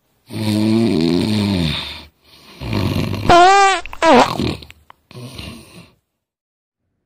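Loud snoring in three breaths. The first is a long rasping snore. The second breaks into a wavering, squealing whistle, and a shorter snore follows before it stops.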